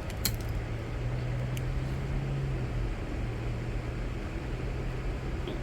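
Steady low hum over a background hiss, with a short break in the hum about three seconds in and a couple of faint clicks near the start.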